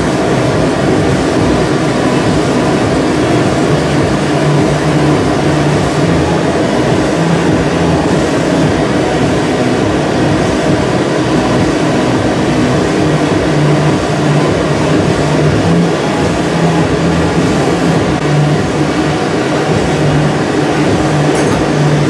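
Steady roar of glassworking gas burners and blowers, with a low hum underneath that wavers slightly.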